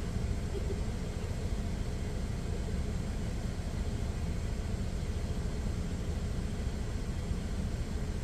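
Steady low rumble of a parked truck's idling engine, heard from inside the cab.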